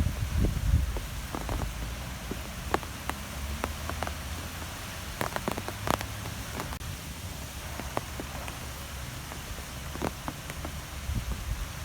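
Wind blowing, with a steady hiss and a low, fluctuating rumble, and scattered light ticks all through.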